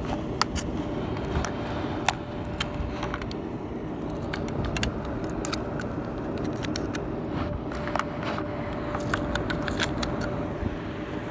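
Steady rush of air from a running clothes dryer's exhaust vent, with a faint hum, while the metal vent cover and foil tape are handled, making many scattered clicks and light metallic rattles.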